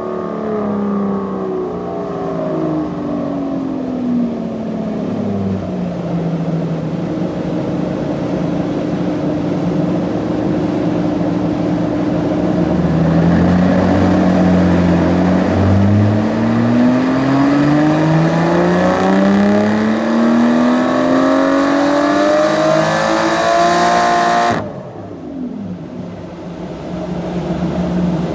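Car engine running on a chassis dynamometer: the revs fall away over the first few seconds, hold steady, then climb in one long pull for about ten seconds. Near the end the throttle shuts suddenly, and the engine drops to a quieter note as the revs fall.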